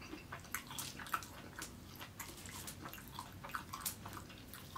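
Close-miked eating sounds of fried rice eaten by hand: wet chewing and a quick string of short mouth clicks and smacks, with fingers squishing through the rice.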